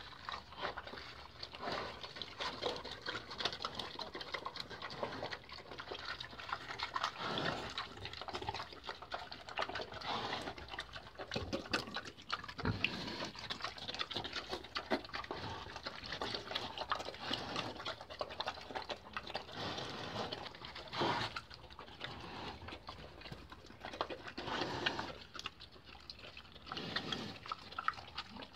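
Domestic pig eating wet slop of kitchen scraps from a feed bowl: continuous wet chomping, lip-smacking and slurping.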